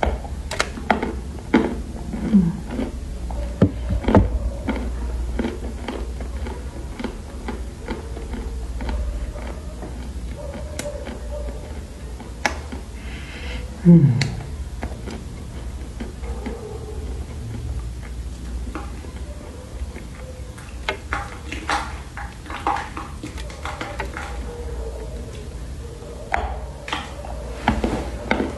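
Close-miked crunching and chewing of dry Chinese loess clay: a string of sharp crunches and mouth sounds as chunks are bitten and chewed. A brief low voice-like sound about halfway through is the loudest moment.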